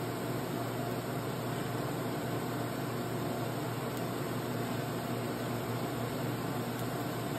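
TIG welding arc held steadily on an engine mount tab on a chassis frame: a constant hiss with a low steady hum from the welder, no breaks or pops.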